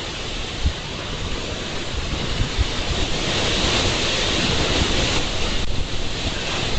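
Strong wind blowing in a steady rush that swells through the middle, with low buffeting of the wind on the microphone.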